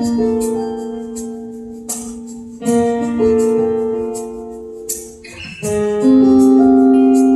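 Acoustic band playing an instrumental intro without singing: sustained chords struck about every three seconds and left to ring, with a light shaker or tambourine rattle.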